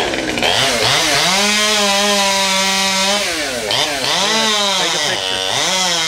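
Chainsaw revving: it climbs to full speed and holds, drops back near the middle, then revs up again twice.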